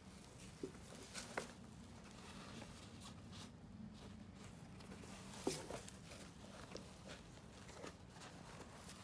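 Faint rustling and a few light knocks from hands handling a black fabric dust bag inside a suede handbag, the sharpest knock about five and a half seconds in, over a steady low hum.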